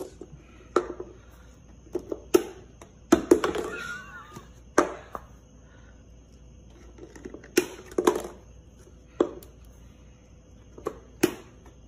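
Sharp, irregular taps and knocks of a plastic cup and its lid against a wooden tabletop, about ten in all, some in quick pairs. A faint wavering high call sounds about four seconds in.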